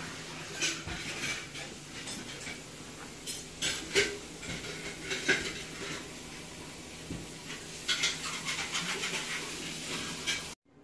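A Siberian husky panting and moving about on a hard floor, with scattered sharp clicks and taps from its nails on the floor and its play.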